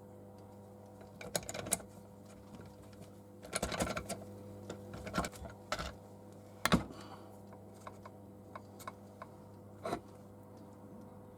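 Scattered clicks and clinks of BSA B31 gearbox parts knocking together as a part is pushed back into the gearbox shell, in small clusters with one sharp knock, the loudest, about two-thirds of the way through. A steady low hum runs underneath.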